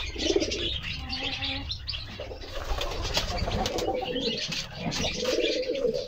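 Domestic pigeons cooing several times, with wing flutters and water splashing as the birds bathe in shallow basins.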